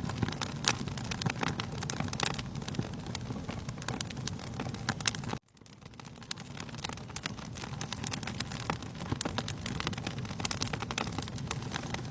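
Wood fire crackling, with frequent sharp pops over a steady low rumble. The sound cuts out abruptly about five and a half seconds in and fades back up over the next two seconds.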